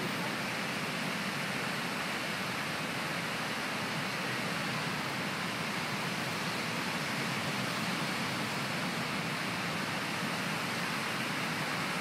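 Steady rushing beach ambience: an even, unbroken noise of wind and sea air at the shore, with no distinct sounds standing out.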